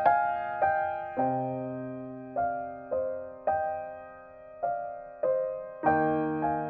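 Background music: soft piano playing slow single notes and chords, each struck note fading before the next.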